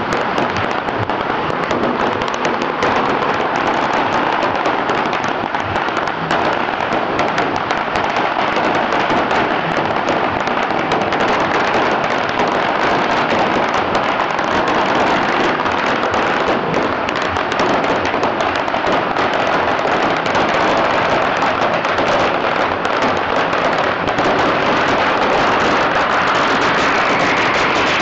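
A very long string of pagara firecrackers burning along the road, its bangs running together into an unbroken, rapid crackle.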